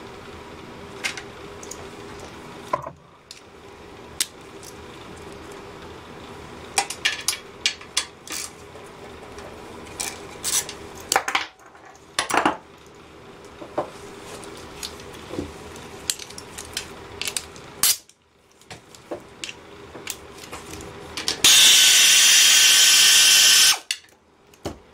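Metal clinks and taps of tools and small parts being handled and set down on a workbench, then near the end about two seconds of a cordless electric ratchet running steadily as it backs a bolt out of a small engine.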